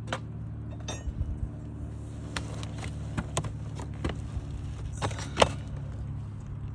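A metal roofing tool clinking and knocking in sharp, irregular strikes as it is worked up under wood roof shakes to pry at a hidden fastener, the loudest strike about five and a half seconds in. A steady low hum runs underneath.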